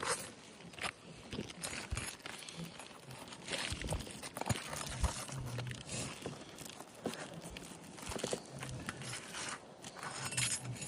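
Asphalt roof shingles being pried up and their nails worked loose: irregular scraping, crunching and small clicks.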